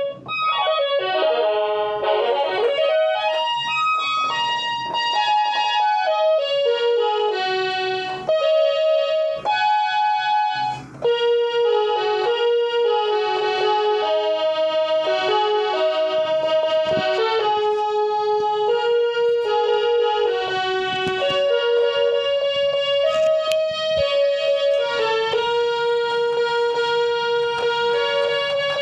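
A toy 37-key electronic keyboard playing a simple single-note melody in a piano-like tone, with held notes and short breaks about 8 and 11 seconds in.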